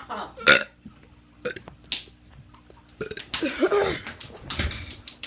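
A teenager burping several times: a short loud burp about half a second in, two brief ones, then a long burp that bends in pitch in the second half. The burps are attempts to talk while burping, such as burping out "hi".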